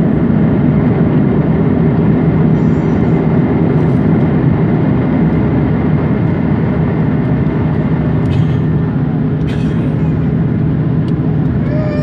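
Airbus A330-300 jet engines and rushing airflow in flight, a loud, steady roar with a constant low hum.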